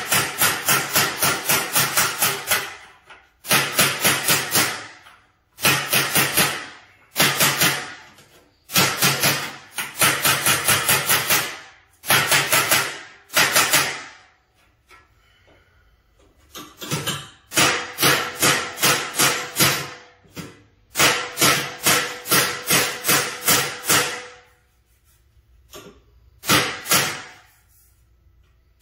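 Claw hammer tapping a pressed-steel (tin) car grille against a socket held behind it as a dolly, knocking down the high spots around a dent. The sharp metal taps come several a second in runs of one to three seconds, with short pauses between runs.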